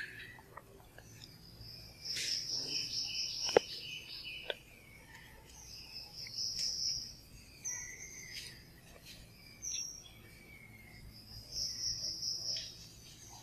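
Chalk writing on a blackboard: scratchy strokes with high squeaks, coming in spells of about a second with short gaps, and a sharp tap about three and a half seconds in.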